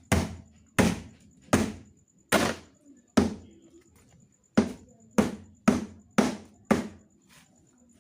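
Repeated heavy blows striking the casing of a single-door LG refrigerator as it is broken apart for scrap. About ten sharp impacts come at an even pace, with a pause of about a second and a half near the middle.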